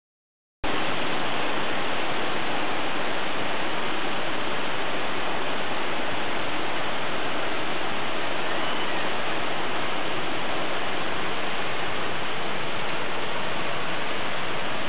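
Heavy rain pouring down in a thunderstorm, a steady, even hiss that starts abruptly about half a second in.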